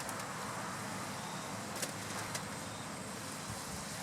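Steady sizzling from sausage frying in a pan and buttered buns toasting on a grill, with a couple of faint clicks.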